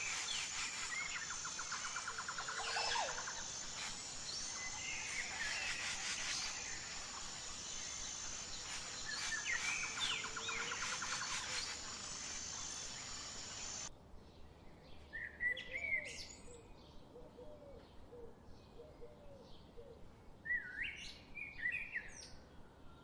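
Birds calling and chirping, with a couple of rapid trills, over a steady high-pitched drone. About two thirds of the way through the drone cuts off abruptly and the sound drops to quieter, sparser bird calls.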